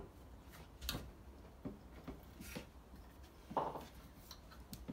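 Grips scraping and clicking on the brass tap fittings under a ceramic basin: a few short, separate scrapes and knocks, the loudest about three and a half seconds in, as the jaws work at nuts stuck fast by corrosion and limescale.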